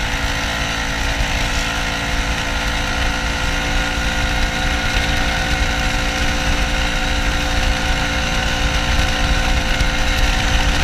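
Snowmobile engine running steadily under way, heard from the rider's seat, over a constant rushing noise; it gets slightly louder near the end.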